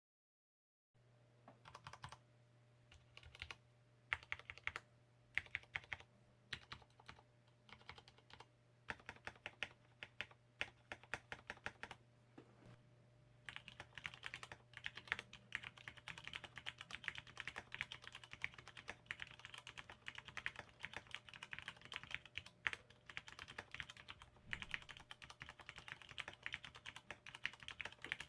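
ABKO AR87 aluminium mechanical keyboard with lubed Cherry MX Red linear switches and lubed stabilizers being typed on. It starts with scattered single keystrokes and short runs, and about halfway in it turns to steady fast typing.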